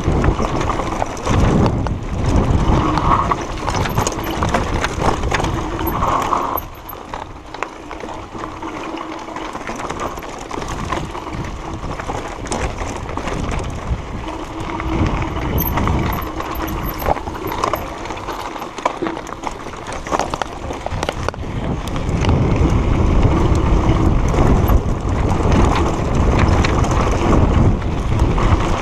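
Mountain bike riding down a rocky dirt trail: wind rumbling on the bike-mounted camera's microphone, with the clatter of tyres and frame over stones. It gets quieter about six seconds in and louder again past twenty seconds.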